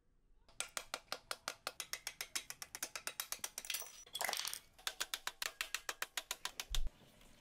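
Socket ratchet wrench clicking rapidly, about nine clicks a second, as bolts are spun out. The clicking breaks off about halfway for a brief rustle, then carries on.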